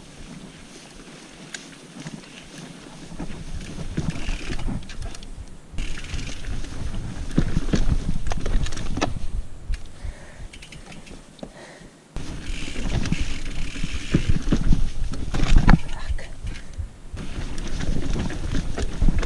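Mountain bike being ridden along a trail, heard from a camera on the bike or rider: wind buffeting the microphone over a low rumble, with knocks and rattles from the bike. Quiet for the first few seconds, then loud from about three seconds in; it dips around ten seconds and jumps back up suddenly at about twelve seconds.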